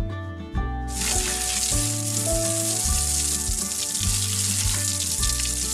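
Water running in a steady hiss, starting about a second in, over background music with a steady beat.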